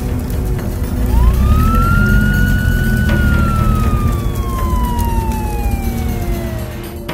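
Cartoon sound effect: a single whistling tone that swoops up quickly, holds, then glides slowly down for several seconds, over a low rumbling music bed.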